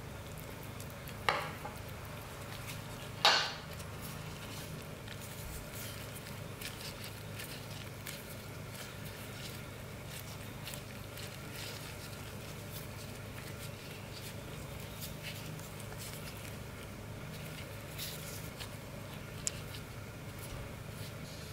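A metal spoon clinks sharply twice against a stainless steel mixing bowl while scooping dumpling filling, followed by faint light ticks as the dumplings are filled and folded by hand, over a steady low hum.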